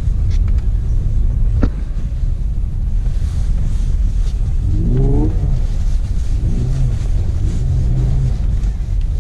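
Mercedes-AMG E 53's engine heard from inside the cabin, pulling hard through a timed run on a snowy ice track, with the revs climbing about five seconds in and again soon after. A short click about a second and a half in.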